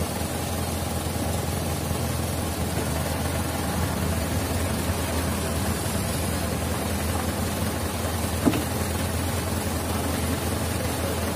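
Dump truck's diesel engine running steadily while its tipper bed lowers after dumping a load of sand. There is one short sharp knock about eight and a half seconds in.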